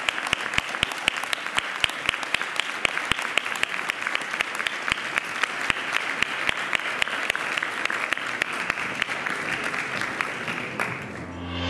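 Audience applauding, with many sharp individual claps close by over the general clapping. The applause dies away near the end as music starts to come in.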